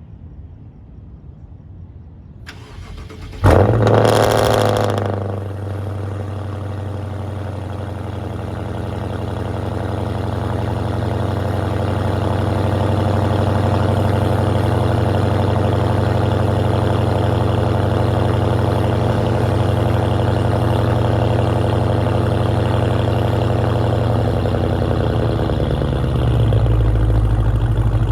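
BMW 650i's N63 twin-turbo V8, with catless downpipes and no muffler, cold-starting: a short crank, then it fires with a loud flare of revs about three seconds in. It settles into a steady high cold idle, and the note deepens near the end.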